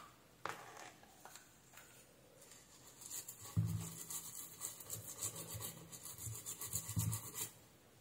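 Quick rhythmic scrubbing strokes over a freshly soldered USB-C connector board, after a few light handling clicks.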